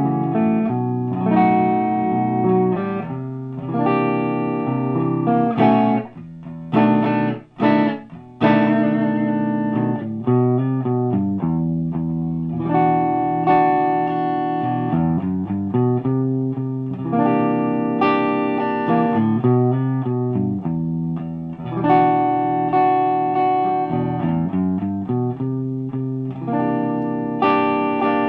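Electric guitar played clean through a Brit-Tone SVO 100-watt all-tube amplifier with two KT88 power tubes and 12AX7 preamp tubes. Chords and single notes ring out, broken by a few quick choked stops about six to eight seconds in.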